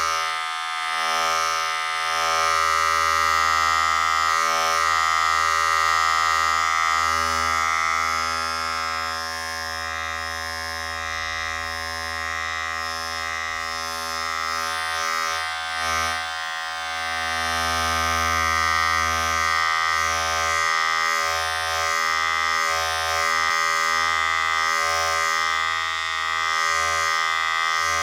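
Electric razor buzzing steadily while shaving, its loudness swelling and dipping every few seconds as it is moved.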